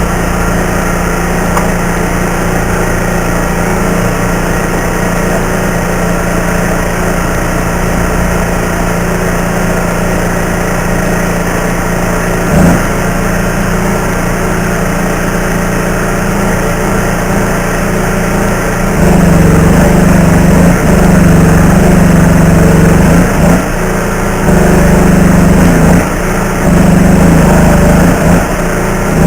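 Stick welding with a steady machine drone; the drone gets louder a little past halfway and drops out briefly a few times.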